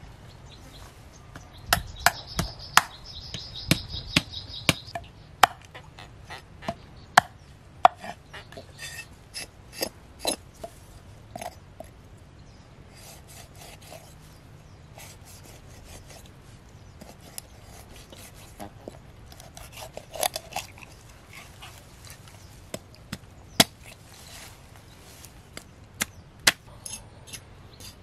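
Cleaver chopping through a whole pangasius (basa) fish on a wooden board: irregular sharp chops, sometimes several in quick succession, with quieter pauses between. A faint high steady tone sounds for a few seconds near the start.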